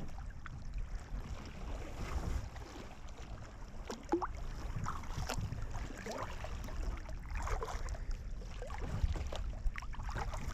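Kayak paddles dipping and splashing, with water dripping from the blades every second or two as a tandem sea kayak is paddled on calm water. Under it runs a steady low rumble of wind on the microphone.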